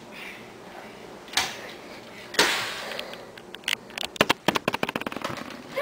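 A single sharp click, then a short loud noisy burst, then a run of sharp clicks and snaps that comes quicker and quicker.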